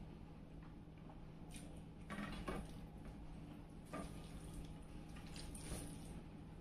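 Wet eating sounds of a person eating a rice meal, a few short squishing and smacking bursts about two seconds in, around four seconds and near the end, over a steady low hum.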